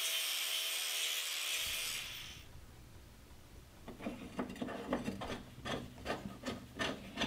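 Angle grinder grinding the edge of a steel lawn mower blade, a steady high hiss that fades out about two seconds in. Later comes a run of irregular light knocks and clinks as the blade is handled.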